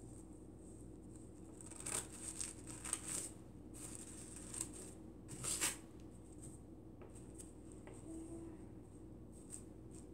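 Scissors cutting through a stack of tissue paper sheets: faint, irregular snips, with a cluster of cuts about two to three seconds in and another near the middle.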